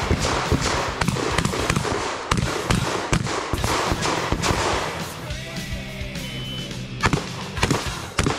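A fast string of shotgun shots, thinning out about five seconds in and picking up again near the end, heard over background music.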